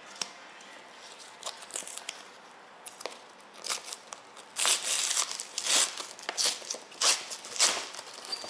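A yellow padded paper mailer being torn open by hand: a run of ripping and crinkling sounds that grows loudest from about the middle on.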